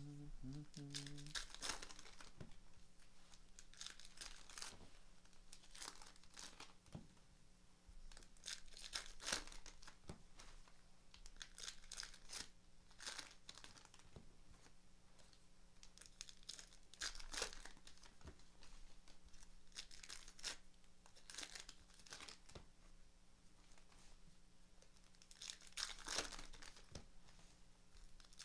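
Trading-card pack wrappers being torn open and crumpled by hand: faint, irregular rustling and tearing in short bursts every few seconds.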